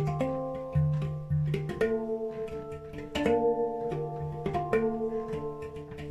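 Handpan played by hand: a steady stream of struck, ringing steel notes. A low note sounds at the start and twice more in the first second and a half, then quicker, higher notes follow.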